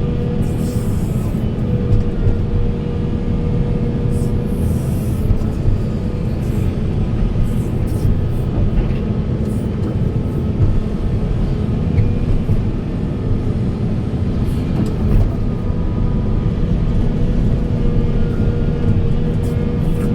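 Volvo EC480 excavator's diesel engine running steadily under working load: a dense, even low rumble with a steady whine held above it.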